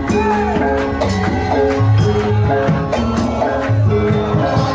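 Live kuda lumping accompaniment music: percussion and repeated tuned notes over a steady low beat.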